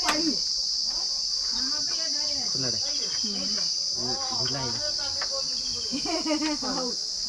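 Steady high-pitched drone of insects, with a single sharp knock right at the start and voices talking underneath.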